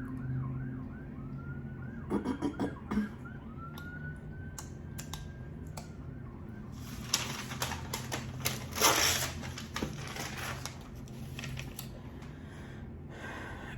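Eating and food-handling noises: clicks, then crackling bursts loudest about nine seconds in. Under them, a faint wavering, siren-like tone and a couple of rising tones in the first half.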